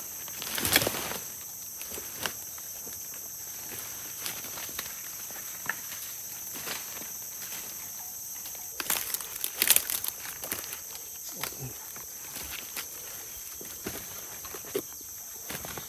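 Steady, high-pitched chorus of forest insects, with scattered rustles, snaps and crackles from someone moving or working in the undergrowth, loudest about a second in and again around ten seconds in.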